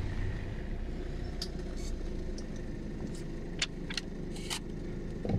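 Inside a car cabin, the engine runs with a steady low rumble. Several short clicks and light rattles are scattered across it.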